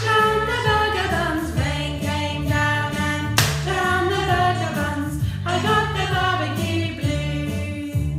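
Children's song sung over a jaunty backing track with bass and percussion, with a sharp percussive hit about three and a half seconds in.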